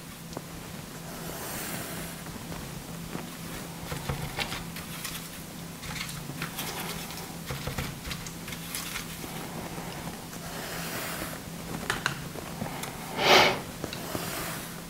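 Watercolour brush mixing paint in a plastic palette: soft scrubbing swishes and light taps of the brush against the palette, with one louder short swish a little before the end.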